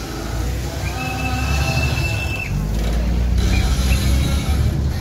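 River passenger boat's engine rumbling steadily with water rushing past the hull. About a second in, a high steady tone sounds for about a second and a half, followed by two short high blips.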